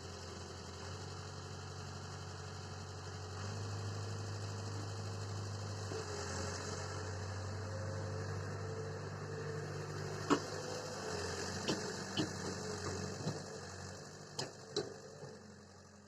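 Swaraj 855 tractor's diesel engine running steadily. Several sharp knocks sound over the last few seconds, and the sound fades out at the end.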